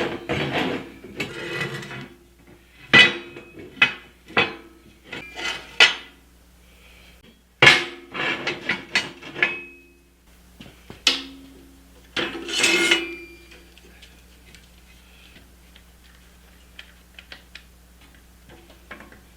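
Steel pieces knocking together with sharp, ringing metallic clanks as they are handled and set in place, a dozen or so strikes in the first two-thirds, then only faint small taps.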